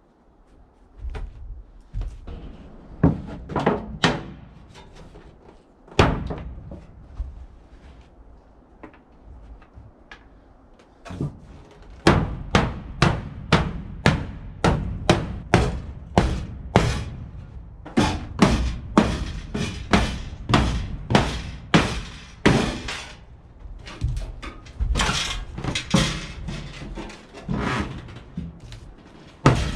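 Background music with a steady percussive beat, about two strikes a second, setting in firmly about twelve seconds in after a few scattered hits.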